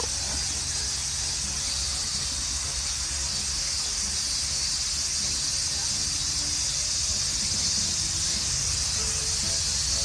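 Steady outdoor background: an even high-pitched hiss over a low rumble, with nothing sudden standing out.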